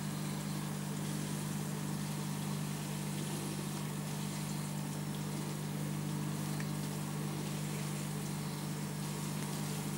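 Aquarium pump humming steadily, with a faint even hiss over it.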